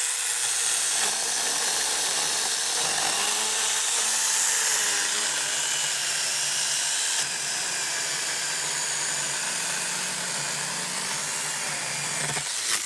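Veitorld mini battery chainsaw cutting through a cedar log under load, its motor and chain running steadily. It stops shortly before the end.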